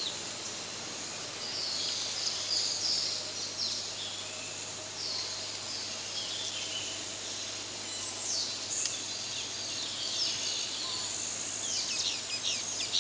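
Outdoor nature ambience: a steady high insect drone with bouts of short, falling bird chirps every few seconds.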